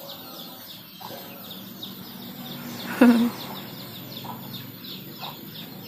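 Backyard chickens: a steady run of high chirps, several a second, with one short louder call about three seconds in.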